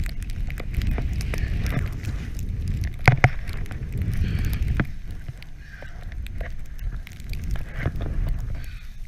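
Snowboard riding through deep powder snow: the board hissing and swishing through the snow under a steady low rumble of wind on the camera microphone, with scattered clicks and one sharp knock about three seconds in.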